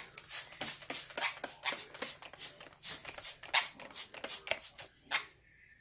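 Small parrot splashing in a shallow bath dish, flapping its wet wings and shaking its feathers: a quick, irregular patter of splashes and flutters that thins out near the end.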